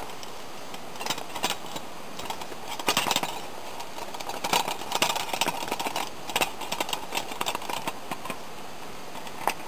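Rustling of a fabric stuff sack, with irregular small clicks and knocks from a Coleman Max nested camp cook set as it is pulled out by hand, over a steady background hiss.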